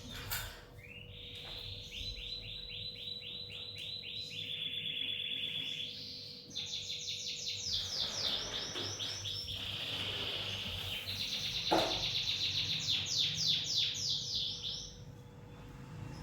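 Lovebird giving long runs of rapid, high, repeated chirps, a few seconds each, with short breaks between them.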